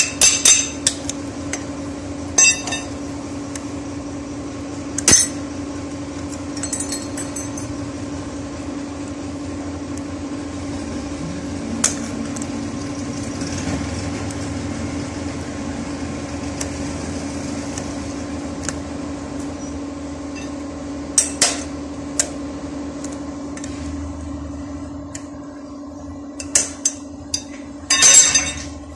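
Steel hand tools knocking and clinking on the metal gear-lever housing of a tractor gearbox: scattered sharp metal taps, a cluster in the first second, more around two-thirds of the way through and near the end. A steady machine hum runs underneath.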